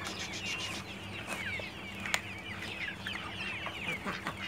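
A flock of chickens calling, many short high falling calls overlapping one another, with a single sharp click about two seconds in.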